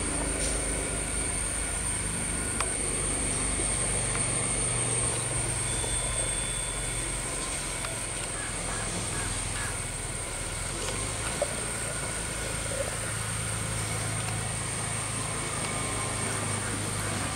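Steady outdoor ambience: a low hum that swells and fades, a constant thin high-pitched whine, and a few faint clicks.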